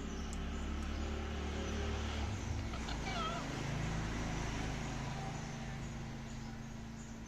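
Indian ringneck parrot giving one brief, wavering call about three seconds in, over a steady low background hum.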